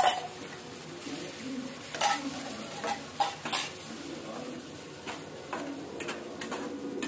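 A spatula stirring and scraping thick masala as it fries in oil in a kadhai, with a steady sizzle underneath. Sharp scrapes and knocks of the spatula on the pan come at the start, about two seconds in, and three close together a second or so later, with lighter ones after.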